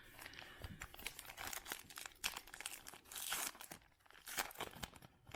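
Baseball trading cards and their foil pack wrapper being handled: irregular crinkling and rustling with small clicks, busiest about three seconds in.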